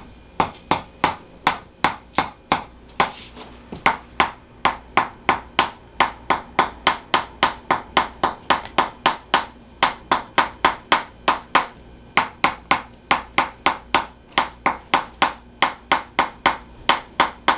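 Tok sen wooden hammer tapping percussively on the body, sharp wooden knocks about three a second in a steady rhythm, broken by a couple of short pauses.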